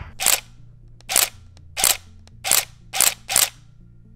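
Nikon DSLR body with its lens off, firing its shutter six times: each a quick mechanical clack of mirror and shutter, the last three coming faster. Each clack is one shutter actuation.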